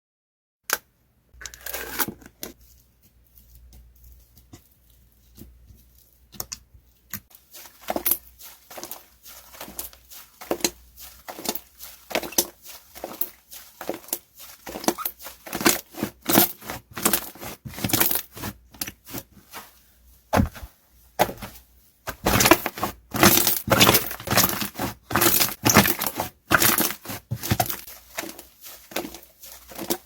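Slime being squished and stretched by hand, giving a run of short sticky clicks and crackling pops. The pops start sparse and grow denser and louder about two-thirds of the way through.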